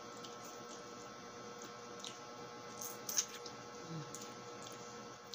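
Wet squishing and smacking of raw lemon flesh being eaten and picked apart by hand, a few short sharp sounds with the loudest about three seconds in, over a steady faint electrical hum.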